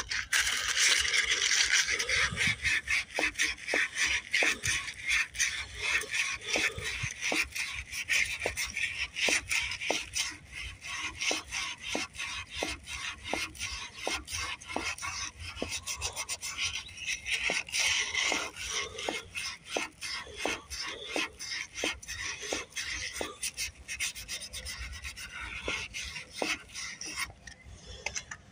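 Sandpaper rubbing back and forth on the steel end of a three-horsepower Briggs & Stratton's crankshaft, in rapid, steady strokes that stop just before the end. The crank end is galled and mushroomed from hammering, and the sanding cleans it up so the flywheel can slide back on.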